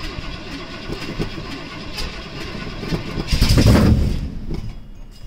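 Chevrolet 454 big-block V8 with a Thumpr camshaft and glass-pack mufflers, running loud and uneven just after a cold start. It swells briefly louder about three and a half seconds in, as if revved.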